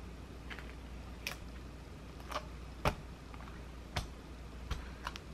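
About half a dozen light clicks and taps, irregularly spaced, the sharpest about three seconds in, as a diamond-painting sticker covered in resin beads is peeled from its paper backing and pressed down onto a clear plastic planner cover.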